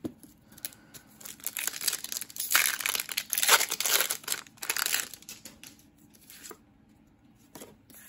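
Foil Pokémon TCG booster pack crinkling as it is handled and torn open, loudest for a couple of seconds in the middle, then a few soft taps as the cards inside are handled.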